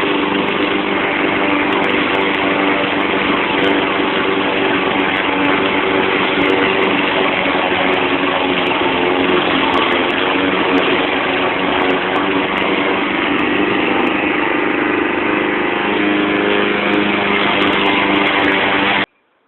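Push mower's 159cc PowerMore gas engine running steadily while mowing grass, cutting off abruptly near the end.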